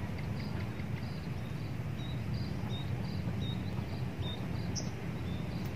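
Outdoor ambience: a steady low rumble under a thin, high chirp that repeats about three times a second.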